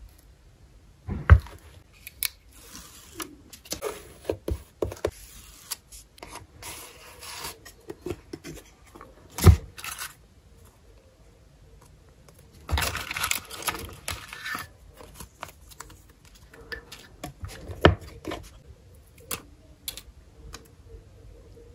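Close-up handling of paper and stickers: scattered light taps and clicks, soft scraping and rustling of paper, and three sharper knocks. A little past the middle comes a longer, louder rustle of stickers being sorted through in a small wooden box.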